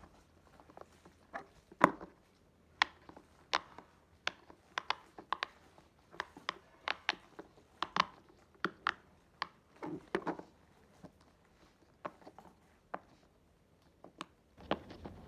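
Silicone poppet fidget toy having its bubbles pressed through one by one, giving a string of sharp, irregular pops about two a second, sparser near the end.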